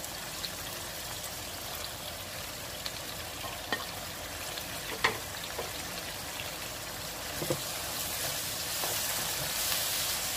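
Chicken, tomato and green chillies sizzling steadily in a non-stick frying pan, with a few sharp clicks as dry spices go in. The sizzle grows louder near the end as a spatula stirs the mixture.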